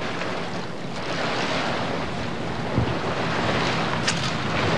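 Wind buffeting the microphone over small waves lapping at a gravel shore, with a brief low thump a little before three seconds in.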